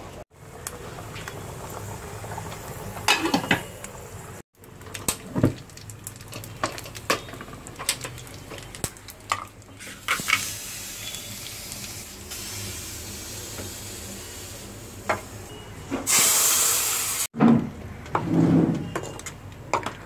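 Curry leaves and dried red chillies sizzling in hot oil in a small pan, with scattered clinks and knocks of a spoon and pan. A louder burst of sizzling lasts about a second near the end.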